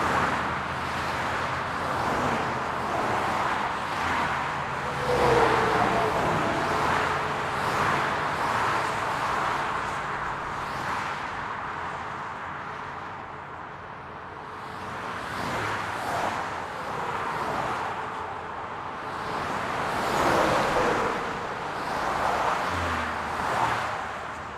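Highway traffic: a steady wash of tyre and engine noise with vehicles passing one after another, swelling as each goes by and easing off briefly about halfway through.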